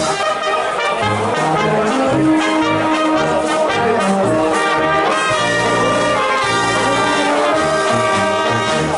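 Live brass band playing a dance tune, trumpets and trombones carrying the melody over a moving low bass line.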